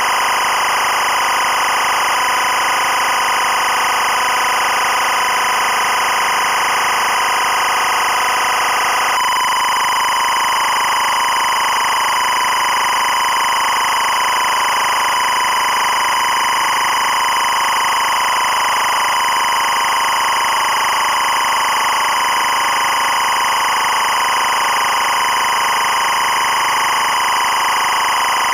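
EBU 25 fps linear timecode (LTC) audio signal: a continuous, steady electronic data tone centred around 1 and 2 kHz. Its pattern changes abruptly about nine seconds in, where the timecode rolls over from 00:59:59:24 to 01:00:00:00.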